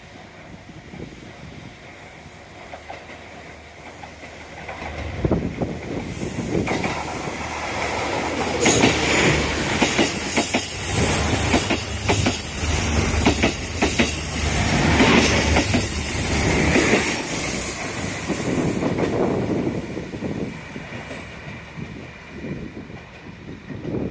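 A train passing close by, its wheels clattering over the rail joints; it builds up over several seconds, is loudest in the middle, then fades away.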